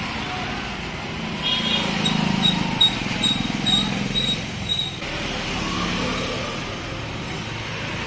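Steady street background noise, with a run of short high pips, about two a second, from about a second and a half in to near the five-second mark.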